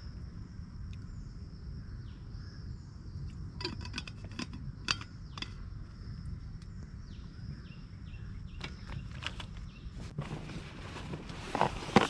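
Forest ambience: a steady high-pitched insect drone, with scattered clicks and knocks starting about three and a half seconds in and coming thicker near the end.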